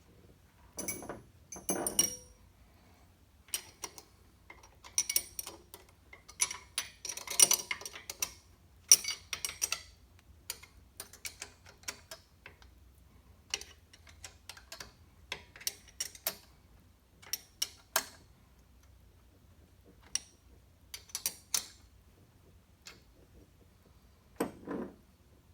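Hand tools on metal clicking and clinking irregularly, with clusters of quick clicks, as fasteners are worked on a Ford Model A engine's manifolds.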